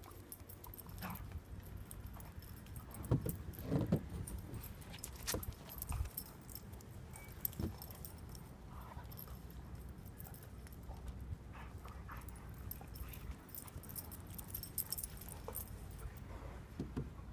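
Dogs playing in snow: scattered light clicks and jingles, with a few louder short knocks, the strongest about three to four seconds in, over a low steady rumble.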